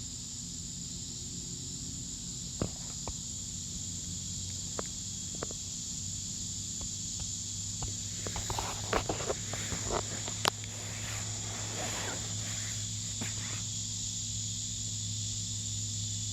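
Natural outdoor ambience: a steady high-pitched buzz over a low hum, with scattered sharp clicks and a flurry of rustling clicks about halfway through.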